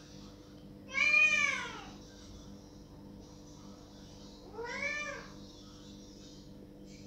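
Domestic cat meowing twice at a closed door to be let through: a loud, drawn-out meow about a second in and a shorter, quieter one about halfway through, each rising then falling in pitch.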